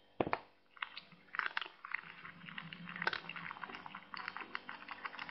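A cat chewing and crunching on something, many quick irregular crunches. A single thump comes about a quarter second in.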